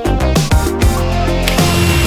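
Background electronic music with heavy drum hits and deep bass notes.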